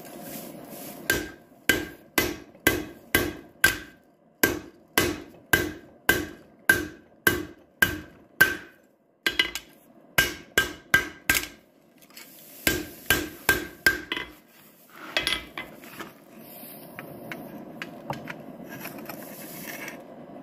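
Blacksmith's hand hammer striking hot steel on an anvil, forging the blade of a coal rake: about two ringing blows a second in runs with short pauses. The hammering stops about two-thirds of the way through, leaving a low steady rush with a few soft knocks.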